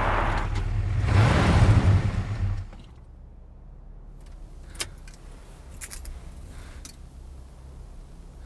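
Ford Crown Victoria's V8 and tyres grinding over desert dirt as the car slides to a stop, cutting off sharply about two and a half seconds in. A low steady hum follows, with a few small clicks.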